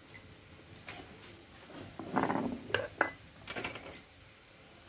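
Glass spice jars and a spoon being handled: a few light clicks and knocks, a louder scraping rattle a little after two seconds in, and a quick run of small ticks about a second later.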